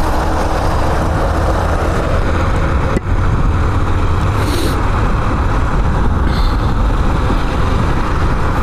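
Steady wind rush on the microphone with a Yamaha Factor 150's single-cylinder engine running underneath as the motorcycle rides along. A single short click comes about three seconds in.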